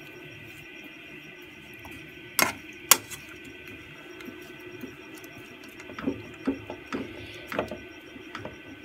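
Metal spoon stirring jaggery in water in an aluminium saucepan, knocking against the pan: two sharp clinks about two and a half seconds in, then a run of lighter knocks and scrapes from about six seconds on, over a low steady hum.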